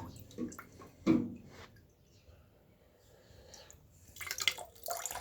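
Water dripping and trickling from the opened boiler filter housing into a cup. Two handling knocks come in the first second or so, the second the loudest, and a louder stretch of noise starts near the end.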